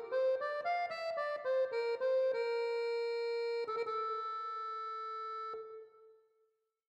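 Closing bars of a tango song's instrumental ending: a quick run of stepping notes, then a long held final note that stops about five and a half seconds in and dies away.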